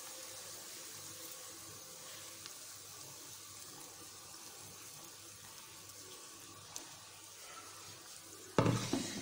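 Beaten egg batter poured into a non-stick frying pan of onions and green chillies frying in oil on low heat: a steady soft sizzle that slowly fades as the egg covers the pan. A short louder sound breaks in near the end.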